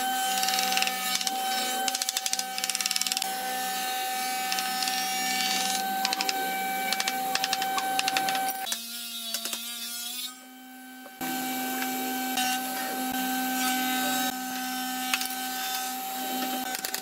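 Hammer tapping wooden boards into place in a panel frame, in clusters of sharp knocks. Underneath runs the steady whining hum of a workshop machine, which dips and cuts out for about a second near the middle before starting up again.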